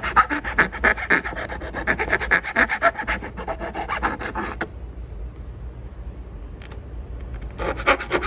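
Rapid rasping strokes of a small grinding tool smoothing the cut edge of a steering-wheel trim piece, stopping about four and a half seconds in and starting again near the end.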